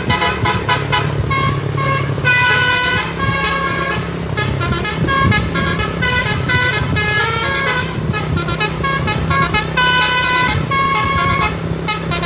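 Tour bus's telolet basuri musical air horn playing a melody: a quick run of short notes with a few longer held ones, over the steady low hum of the bus engine.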